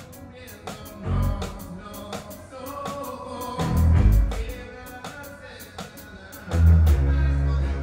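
Live pop-rock band playing with vocals: a steady ticking cymbal beat over sung or keyboard melody lines, with heavy bass notes that come in strongly near the end.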